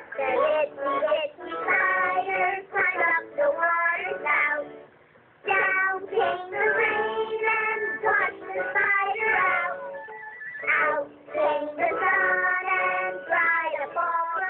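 A cartoon song: a child's voice singing with music, heard through a television's speaker. It stops briefly about five seconds in, then carries on.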